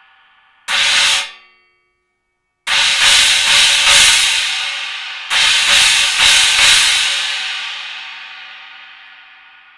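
Synergy Zircon cymbal: a single hit cut off short about a second in, then, after a gap of silence, struck four times in quick succession and left to ring, and struck in a second cluster of four just past halfway, the shimmering wash then fading out slowly.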